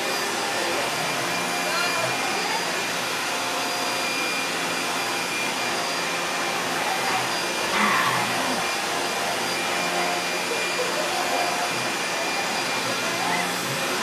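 Upright vacuum cleaner running steadily, with a steady hum and whine over its rushing noise, as it is pushed back and forth over a hardwood floor.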